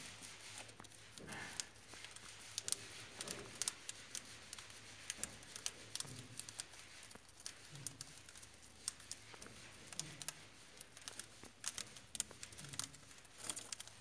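Cockatiels eating seed: a stream of small, sharp, irregular clicks and crackles as their beaks crack and husk the seeds.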